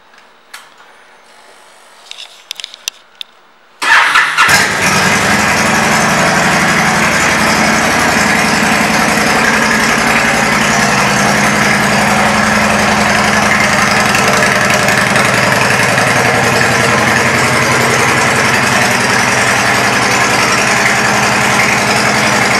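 2013 Honda Stateline's V-twin engine, fitted with Cobra aftermarket pipes: a few faint clicks, then about four seconds in it cranks, catches and settles into a steady idle.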